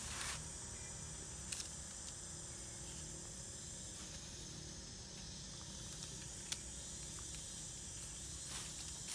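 A steady, high-pitched drone of insects, with a few brief crackles of dry leaves as the monkeys move on them.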